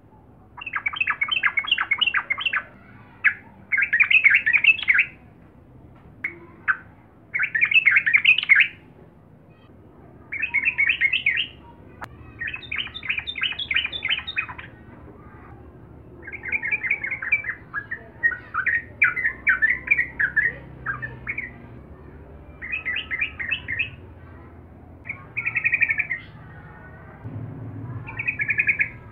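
Yellow-vented bulbul singing: about ten short, rapid chattering phrases, each a second or two long, with brief pauses between them.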